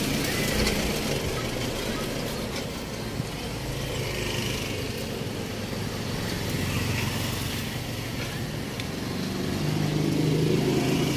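A motor vehicle engine running steadily, with a low hum that grows louder about ten seconds in.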